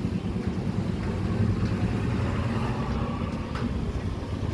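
Passenger ferry's engines running with a steady low hum.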